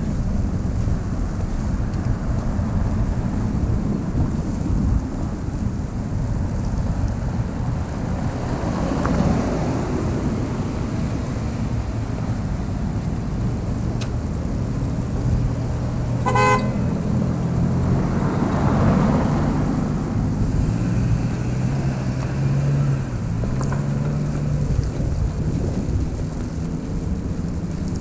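Cars passing on a snowy street, their tyres hissing as they come and go, with a short car horn toot about halfway through. A vehicle engine hums low through the second half over a steady wind rumble.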